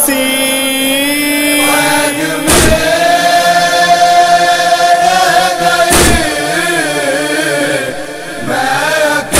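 A male voice singing an Urdu noha (Shia lament) in long, drawn-out notes that waver, with a deep thump about every three and a half seconds.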